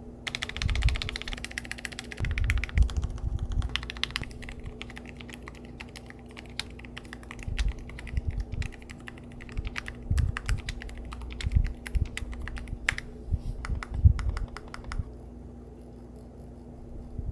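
Typing on a OnePlus x Keychron Keyboard 81 Pro mechanical keyboard with Summer Breeze switches and marble mallow keycaps in an aluminium case: fast runs of key clicks with heavier thocking strokes in bursts. The typing thins out about 15 seconds in.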